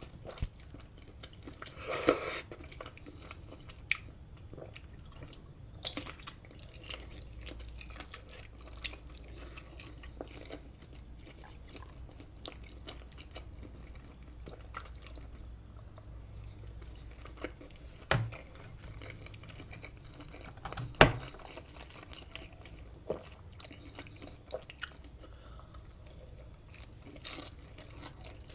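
Close-miked chewing and biting of cooked breakfast food: wet mouth clicks and light crunches, with a few louder sharp knocks, the loudest about three quarters of the way through.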